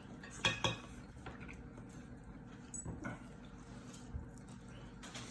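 A person's short, sharp breaths and mouth sounds, with two quick gasps about half a second in and fainter ones after. They are reacting to a mouth burning from Carolina Reaper hot sauce.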